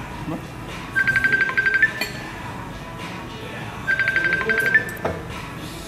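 Mobile phone ringing with an incoming call: a short trilling ring of just under a second, twice, about three seconds apart.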